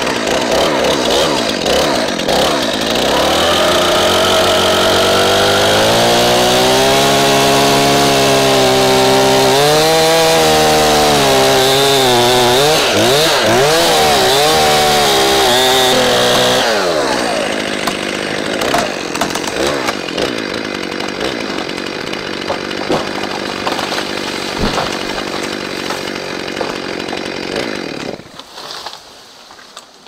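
Stihl MS 271 Farm Boss two-stroke chainsaw cutting into a standing tree at full throttle, its engine pitch rising and dipping as the chain bogs and frees in the wood. About 16 s in the engine drops back and the sound turns lower and rougher, with a sharp thump about 19 s in, before dying away near the end.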